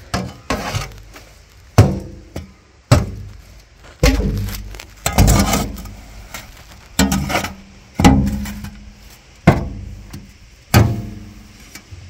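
A shovel blade striking and scraping against a wheelbarrow tub while scooping compost, about ten sharp hits roughly a second apart, each followed by a short ringing fade.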